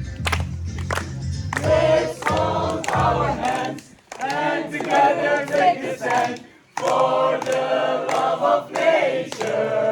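A group of voices singing a song together, over low sustained notes, with two short breaks about four and six and a half seconds in.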